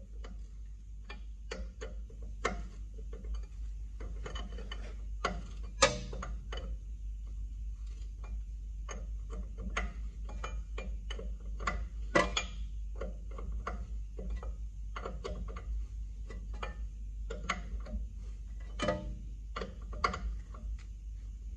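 Hand wrench working a fitting on a truck's front air-brake chamber line: irregular metal clicks and clinks, with louder knocks about 6, 12 and 19 seconds in.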